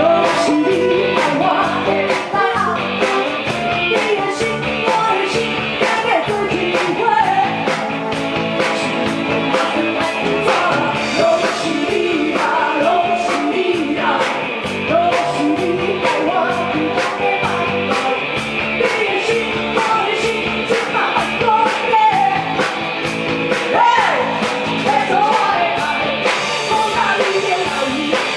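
Rock song with a lead singer over a full band, driven by a steady drum beat.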